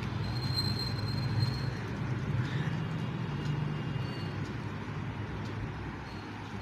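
Steady low-pitched background noise, with a faint high tone in the first second or two.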